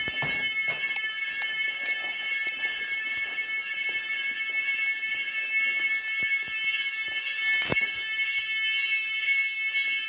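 Finsécur type 4 fire alarm sounding continuously on an evacuation test, a steady high multi-tone sound. There are a few knocks along with it, and the sharpest is about three-quarters of the way through.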